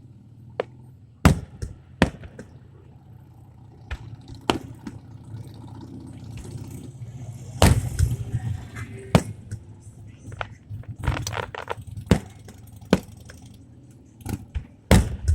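Aerial fireworks shells bursting, about a dozen sharp bangs at irregular intervals, the loudest about halfway through with a ringing smear after it, over a steady low hum.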